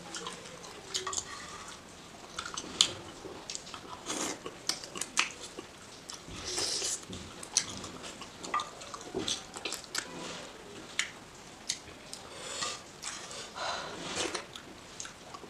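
Close-up eating sounds of chicken curry eaten by hand: wet chewing, biting and lip-smacking, heard as an irregular string of sharp clicks and short smacks.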